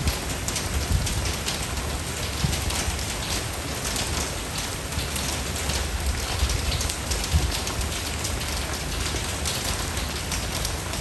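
Steady rain falling, with many individual drops pattering on a surface over a low rumble.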